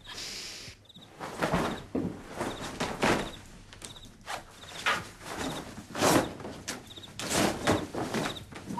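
Clothes rustling, with soft thumps and shuffling, as a man strips off his shirt and trousers; a string of short, uneven rustles and bumps.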